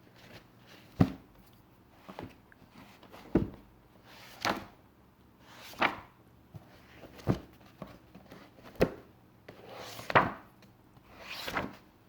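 Pages of a paper book being turned one after another, each a short swish, about nine page turns at a steady pace of roughly one every second and a half.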